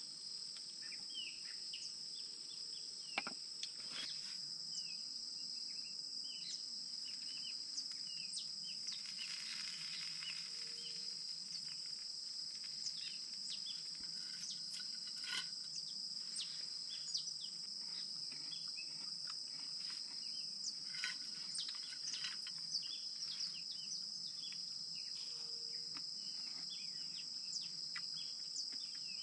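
Outdoor ambience of insects and birds: a steady high-pitched insect drone holding two pitches throughout, with many short bird chirps and calls scattered over it. A few sharp clicks break in now and then.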